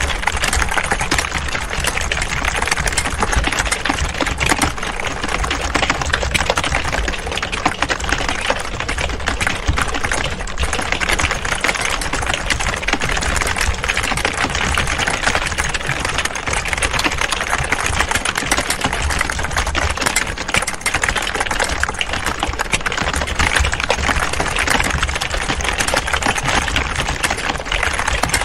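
Many people typing at once on computer keyboards: a dense, steady clatter of overlapping key clicks.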